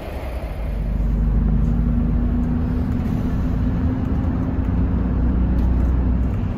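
Ride inside a moving city bus: steady low rumble of the engine and tyres on the road, with a steady drone that comes up about a second in and holds.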